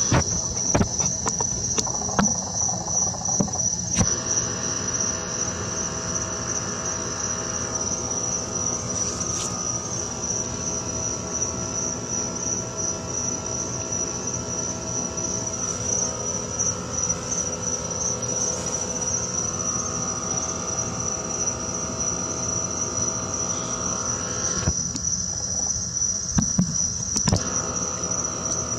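Crickets chirping in a continuous high-pitched trill, with a few sharp clicks near the start and again near the end.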